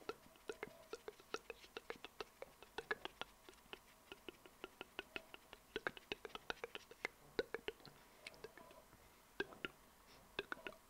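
ASMR mouth sounds close to the microphone: quick, irregular wet lip smacks and tongue clicks, several a second, with short pauses between runs.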